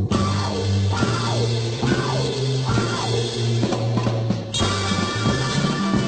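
Raw garage-psych rock recording playing: drum kit, bass and guitar, with a run of falling pitch glides in the first couple of seconds. The sound turns brighter and fuller about four and a half seconds in.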